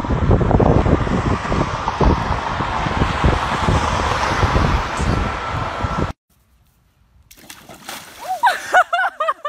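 Loud splashing rush of water with irregular thumps from a pressure washer spraying, cut off suddenly about six seconds in. After a moment of near silence, water splashes in a plastic paddling pool, and near the end come a quick run of high, rising-and-falling calls.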